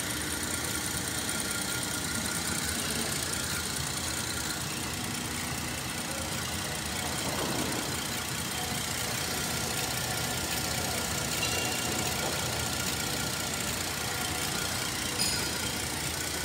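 Holden Statesman 3.6-litre V6 engine idling steadily, heard with the bonnet open.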